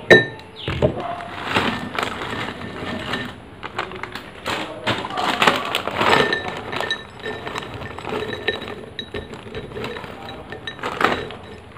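Crinkly plastic snack packets being handled and shaken out while crisp chips and puffed snacks rattle and clink into glass bowls. A sharp glass clink right at the start, then irregular crackling and tinkling throughout.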